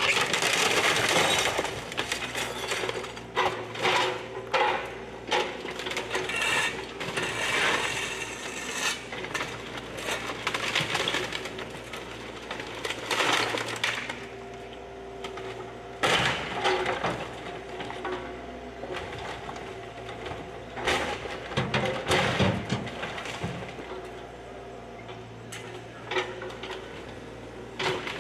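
Bobcat E35 compact excavator's diesel engine running steadily with a hydraulic hum while it breaks up wooden house debris. Repeated irregular cracks, crunches and clatter of splintering boards and falling rubble come throughout, loudest at the start, around the middle and again a little later.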